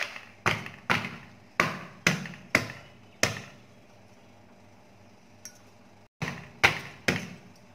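Stainless steel hand pounder knocking down onto a piece of ginger on a wooden chopping board, crushing it: seven blows at about two a second, a pause, then three more.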